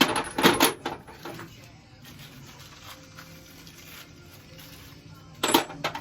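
Small metal plumbing fittings clattering as they are handled and dropped together: a cluster of sharp clinks in the first second and another short burst near the end.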